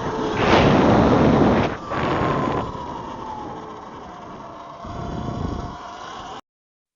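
Wind rushing and buffeting over a camera microphone while riding an electric motorbike. It is loudest in the first two seconds, then eases, and a faint whine slides down in pitch. The audio cuts off abruptly near the end.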